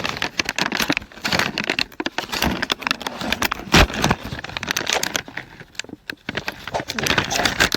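Whiskas Temptations plastic treat pouch being torn open and handled, a run of crackling and crinkling, with one sharp knock about four seconds in that is the loudest sound.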